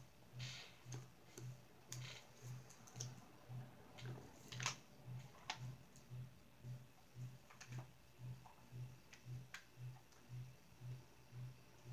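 Faint, irregular clicks and taps over a low hum that pulses evenly about twice a second, in a quiet small room.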